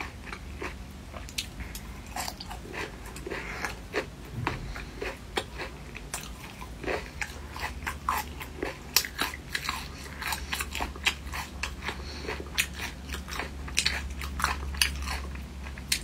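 A person chewing and biting food close to the microphone: irregular wet clicks, crunches and mouth sounds, several a second, over a steady low hum.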